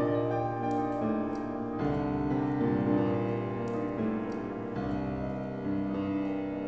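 Background piano music, notes changing every second or so.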